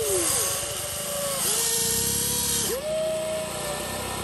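Electric motors of a Huina RC excavator whining as the boom and bucket dig into loose sand. Several whines start and stop one after another, one sagging in pitch as it cuts out right at the start. Two bursts of gritty hiss come near the start and from about one and a half to nearly three seconds in.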